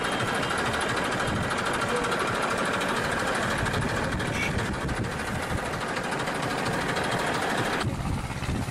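An engine idling steadily with a fast, even running pulse. About eight seconds in it cuts to a deeper, duller rumble.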